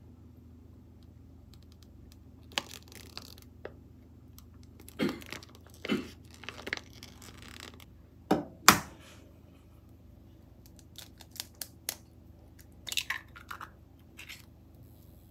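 Kitchen handling sounds: a plastic sauce pouch crinkling, scattered clicks and knocks of utensils and containers, and two sharp knocks a little past the middle, the loudest sounds. Near the end come short cracking clicks as an egg is broken into a frying pan, over a faint steady hum.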